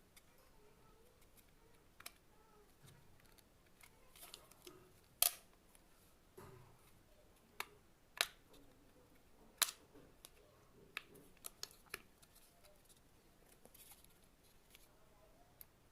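About ten irregular, short, sharp clicks and taps, the kind made by handling small hard parts and tools while working on a clothes iron. The loudest come about five seconds in and just before the ten-second mark.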